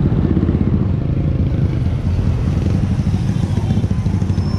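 Motorcycle engine running steadily, loud and close.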